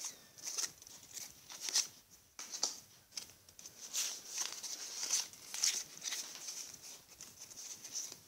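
A small stack of Pokémon trading cards being handled and slid against each other, making a string of short, irregular dry swishes and flicks.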